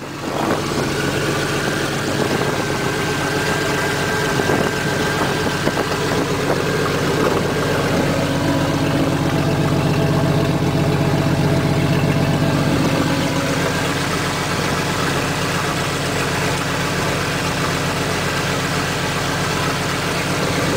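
Jeep engine idling steadily, just started after a transmission fluid line repair and refill.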